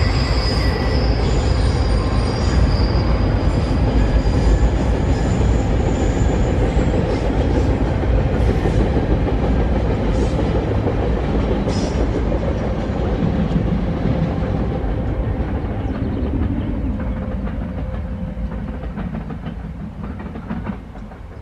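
Estrada de Ferro Vitória a Minas passenger train's coaches rolling past, a steady rumble of wheels on rail that fades away over the last several seconds as the end of the train goes by.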